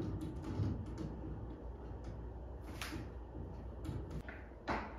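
Vertical window blinds being drawn open: soft plastic clicks and knocks, with a sharper clack near the middle and another near the end, over a low steady room hum.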